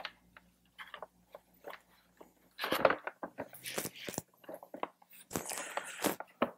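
Hands handling the plastic fairing vent trim and pulling the microphone cable through: scattered clicks, scrapes and crunchy rustles, heaviest about three seconds in and again near the end.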